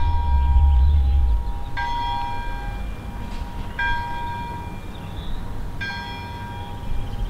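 A church bell tolling, struck about every two seconds, each stroke ringing on and fading before the next. A low rumble under the first stroke.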